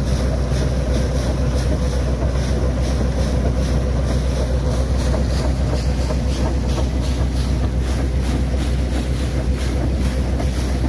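Truck-mounted borewell drilling rig's engine running with a steady low drone, while water from the newly completed 800-foot bore jets out of the discharge pipe under strong pressure and splashes onto the ground.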